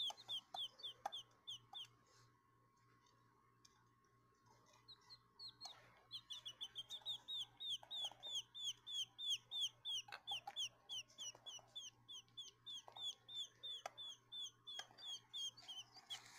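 Baby quail chicks peeping: a run of short, high, falling peeps, several a second. It breaks off about two seconds in, starts again around five seconds and keeps going until near the end.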